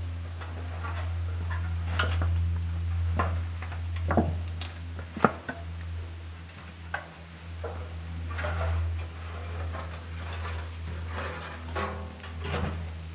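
Sheet of corrugated iron being handled and shifted around a fire pit: irregular metallic clanks, scrapes and rattles, the sharpest clank about five seconds in. A steady low hum runs underneath.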